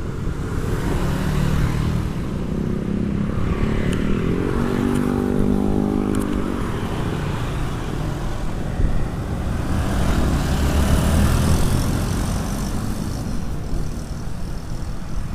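Road traffic with vehicles passing over a steady low rumble. About four to seven seconds in, one engine rises a little in pitch and then fades away.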